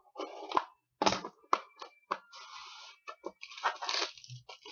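Foil wrapper of a trading-card pack being slit open and handled, crinkling and tearing, with several sharp clicks and knocks.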